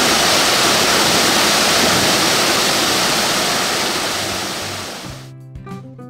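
A waterfall's steady rush of falling water, fading out over the last couple of seconds. Music with plucked notes comes in near the end.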